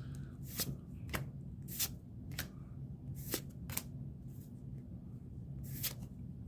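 Pokémon trading cards being flipped through by hand, one card slid past the next: a run of short, crisp card swishes, roughly one every half second to second.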